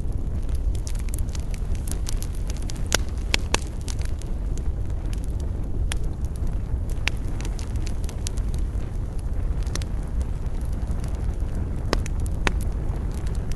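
Wood campfire crackling, with sharp pops and snaps at irregular moments, a cluster about three seconds in and again near the end, over a steady low rumble.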